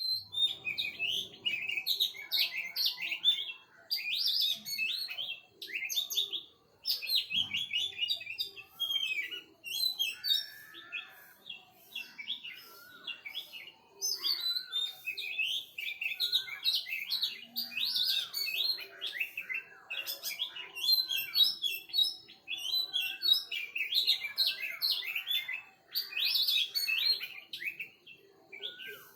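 Many small birds chirping and twittering together in a busy chorus, with quick overlapping phrases in bursts every second or two.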